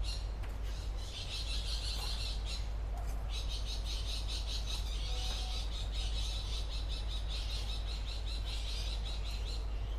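Birds chirping rapidly and continuously in a high register, pausing briefly about two and a half seconds in. Under it, soft scrapes of a trowel turning damp potting soil.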